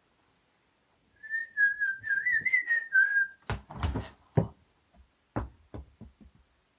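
A person whistles a short, wavering tune for about two seconds. Then a ball is kicked and thuds against things, and near the end it bounces on the floor, the bounces coming quicker and quicker as it settles.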